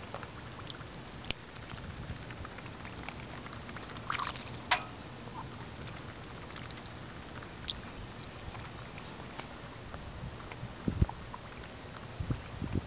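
Two Muscovy ducks dabbling and drinking from a bowl of water: soft, irregular clicks and slurps of their bills, with a sharper cluster of clicks about four seconds in and a couple of low thumps near the end.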